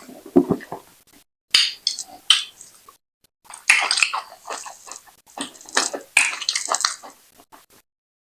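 Close-up eating sounds: wet smacking and slurping of fufu with slimy ogbono soup being chewed, in irregular bursts with short pauses, falling quiet near the end.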